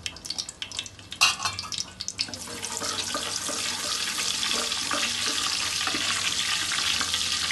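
Whole spices (cumin, coriander seeds, bay leaf) frying in hot oil in an aluminium pot, stirred with a wooden spoon. A few light clicks and knocks come first. From about two seconds in there is a steady sizzle, the tempering crackle of seeds in hot oil.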